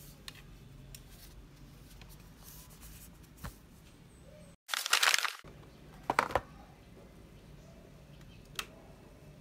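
Handling noise from a tablet: a few light taps and clicks. About five seconds in comes a short, loud crinkling rustle, the loudest sound, followed by a quick cluster of clicks and one more tick near the end.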